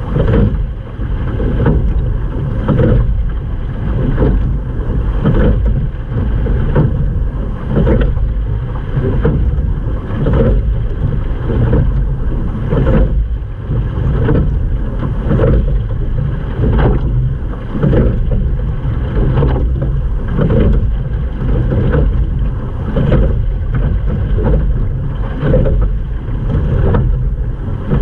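Sculling boat being rowed: a sharp knock-and-splash accent with each oar stroke, about one every second and a half, over a steady low rush of wind and water.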